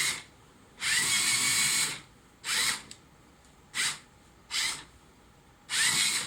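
Lego EV3 Mindstorms motors driving the EV3D4 robot under remote control, whirring in a series of short start-stop bursts, the longest about a second, with quiet gaps between them. Some bursts carry a high whine that glides in pitch as they start.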